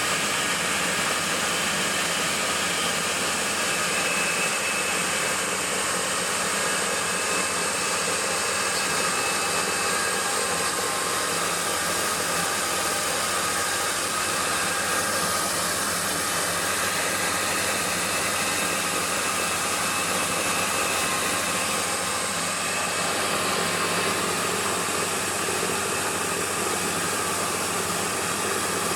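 Combined rice mill and crusher machine running steadily, a constant whirring hiss with faint steady hum tones.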